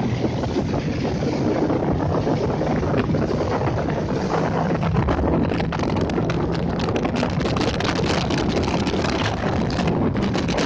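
Motorboat engine running under way, a steady low drone under heavy wind noise on the microphone. The wind buffeting turns gustier and crackly about halfway through.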